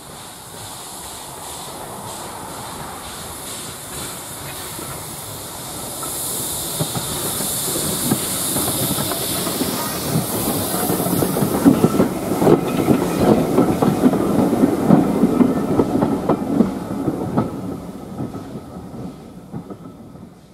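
Southern Railway steam tank locomotive hauling passenger coaches approaches with a loud steam hiss, then passes close by, its wheels and the coaches' wheels clicking and clattering over the rail joints. The sound grows steadily louder, peaks about midway, and fades as the train draws away.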